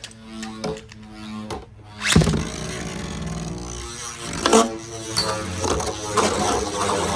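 Two metal Beyblade tops spinning in a plastic stadium with a steady whir. They strike each other sharply about two seconds in and again about four and a half seconds in.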